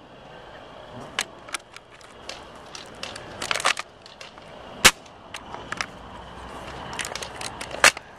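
Airsoft pistols firing: scattered sharp snapping shots, some in quick runs, with the loudest cracks about five seconds in and near the end.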